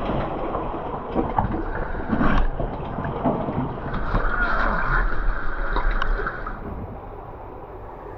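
Water splashing and sloshing irregularly as people wade through deep cold water, with scattered knocks, easing off near the end.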